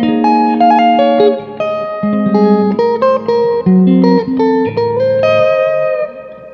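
Electric guitar played through a Fender Hot Rod Deluxe tube combo amplifier: a phrase of single notes and short chords, ending on a held note that fades out near the end.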